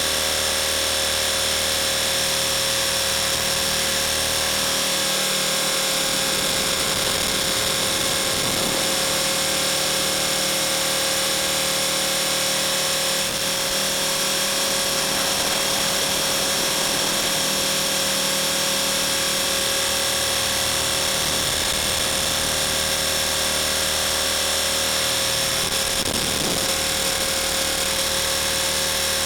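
Blade 450 3D electric RC helicopter flying: a steady, high-pitched whine from its electric motor and gear drive, with the rotor hum under it and slight pitch wobbles now and then.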